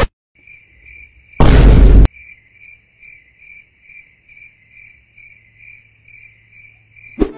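Cricket chirping in a steady, even pulse of high chirps at one pitch, about two to three a second. About a second and a half in, a loud boom lasting well under a second cuts across it.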